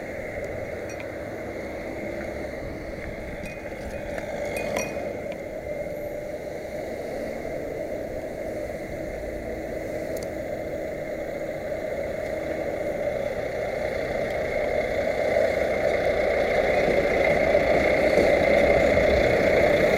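A motor vehicle's engine running steadily, growing louder over the last several seconds as it comes closer, with a light clink about five seconds in.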